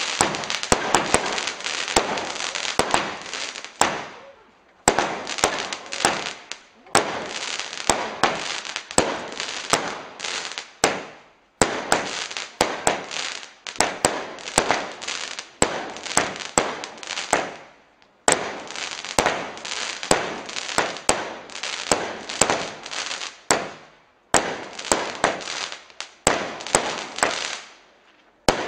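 Weco Ipanema firework cake firing in volleys: each volley opens with sharp launch reports, one or two a second, under dense crackling, then fades out before the next starts. There are about seven such volleys, broken by short pauses.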